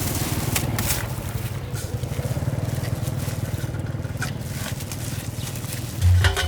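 A small engine runs steadily with a fast, even throb, alongside scattered light clicks and scrapes. Music with a heavy beat comes in near the end.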